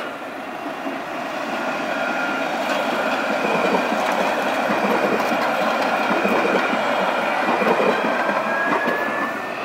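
Alstom Citadis tram running past: a steady rolling noise of steel wheels on rails with a faint high whine. It grows louder over the first two seconds.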